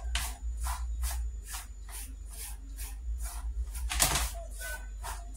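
A spoon stirring coconut flour and cranberries in a metal bowl: a rhythmic run of short scraping strokes, about three a second, with one louder scrape about four seconds in. A steady low hum underneath.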